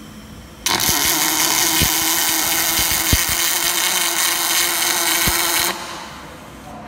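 MIG welding arc from an automated 4-axis welding machine's torch laying a weld: a loud, steady crackling hiss that starts suddenly about a second in and cuts off sharply about five seconds later, with a few sharp pops.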